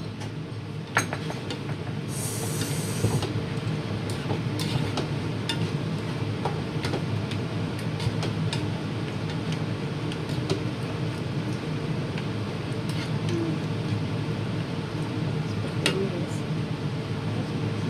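A slotted spatula scraping and knocking against a large metal pan as chunks of goat meat are stirred and turned, giving scattered clicks over a steady low hum.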